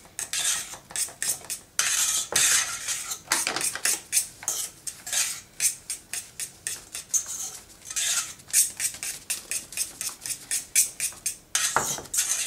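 Paper flour bag crinkling and rustling in irregular crackles as it is tipped and shaken to pour flour into a mug.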